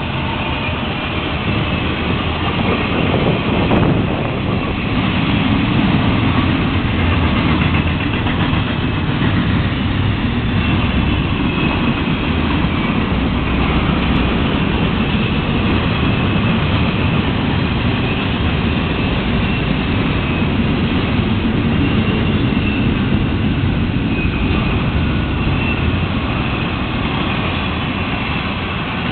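Freight cars of a long Florida East Coast Railway train rolling past: a steady rumble of steel wheels on the rails, with faint thin high tones riding over it.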